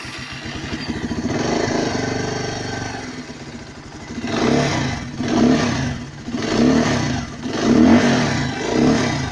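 Motorcycle engine running with its timing chain tensioner freshly re-adjusted to quieten timing chain noise. It idles for the first few seconds, then the throttle is blipped about five times from roughly halfway through.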